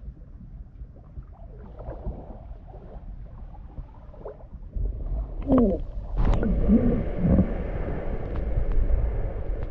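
Water sloshing and rumbling against a handheld microphone beside a surfacing humpback whale. About five seconds in it grows louder and muffled, with a few short wavering moans, then a steadier rushing.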